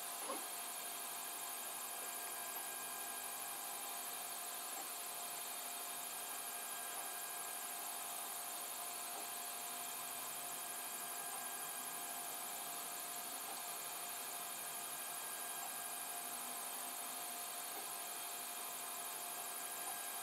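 FDM 3D printer running mid-print: a steady hum and hiss from its cooling fans and motors, with a few fixed tones held throughout. A small click comes just after the start.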